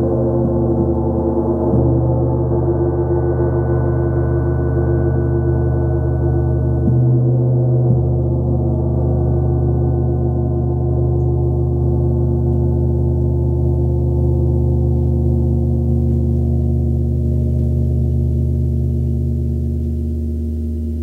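36-inch (90 cm) KI gong played with a soft mallet: a sustained wash of many steady, low overlapping tones, renewed by soft strokes about two seconds in and again about seven seconds in, then slowly fading near the end.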